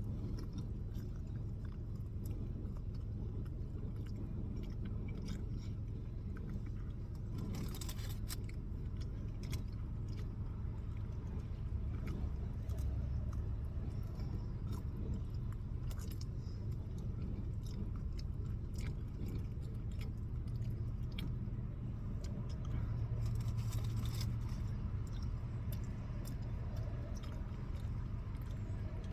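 Close chewing and eating sounds with small clicks of food and tray, over a steady low hum.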